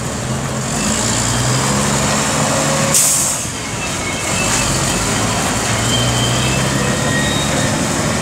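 2003 Mack CV713 Granite concrete mixer truck's diesel engine running as the truck pulls away and drives off, with a short hiss of air from its air brakes about three seconds in.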